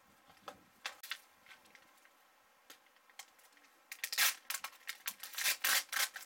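A few light clicks and scrapes of a table knife on butter and bread, then, from about four seconds in, loud crackly crinkling and tearing of plastic food packaging being opened.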